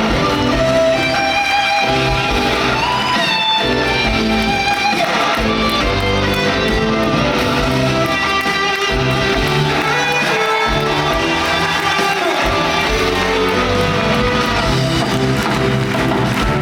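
Curtain-call music from the musical's band, several instruments playing sustained, changing chords.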